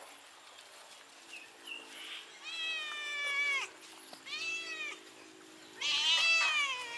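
Domestic cat and kitten meowing three times: a long falling meow, a shorter one, then the loudest one near the end. They are begging for food after smelling fish.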